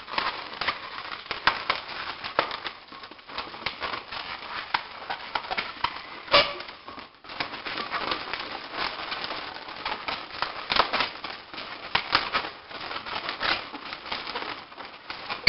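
Latex 260 twisting balloons being wrapped and twisted by hand, rubbing against each other in a rapid, irregular run of small crackles with an occasional louder snap.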